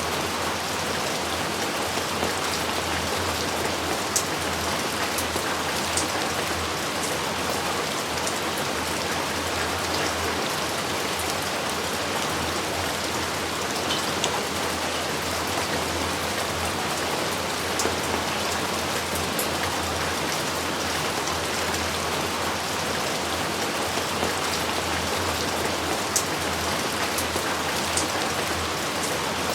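Steady rain falling, a dense even patter with a few sharper individual drop hits standing out now and then. No thunder.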